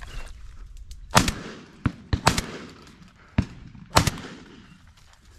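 12-bore shotgun firing three shots over about three seconds: the first about a second in, the second a second later, the loudest near four seconds. Fainter sharp cracks fall between them.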